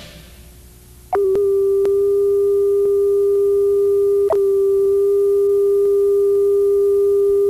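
Video tape line-up test tone: one steady, unwavering pitch that comes on loud with a click about a second in and holds, with a brief click a few seconds later. Before it, the last of the closing music fades out.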